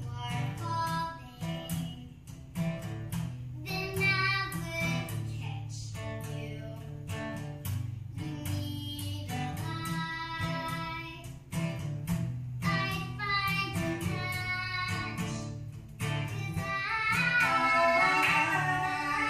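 Acoustic guitar strummed in a steady rhythm to accompany a young female voice singing a song in short phrases; the singing and playing get louder about three-quarters of the way through.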